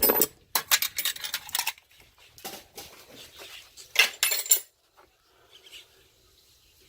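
Steel hand tools clinking and rattling against one another in a run of sharp clicks, with a few shorter clusters after it, as a socket is picked out to tighten the alternator's power-terminal nut.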